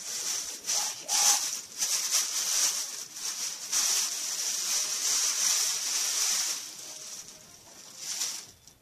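Wrapping rustling and crinkling as an item is unwrapped by hand, in irregular stretches that die down near the end.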